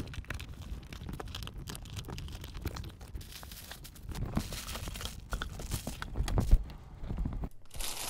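Cardboard shipping box being opened and handled, with plastic air-cushion pillows and plastic bags rustling and crinkling among irregular knocks and bumps. The sound cuts off abruptly shortly before the end.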